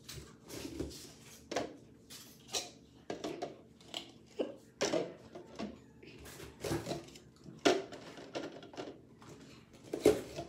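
Red plastic party cups being set down one by one on a countertop and on top of other cups to build a pyramid: irregular plastic clacks and taps, about two a second, the loudest about eight seconds in and just before the end.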